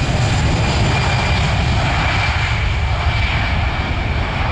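Airbus A320-family airliner's twin jet engines at take-off power during the take-off roll: a loud steady rumble with a thin whine on top.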